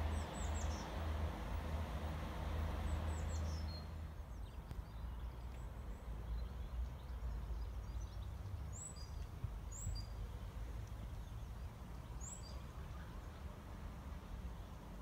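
Outdoor background noise: a low rumble and hiss that ease off about four seconds in, with a few short, high, falling bird chirps scattered through.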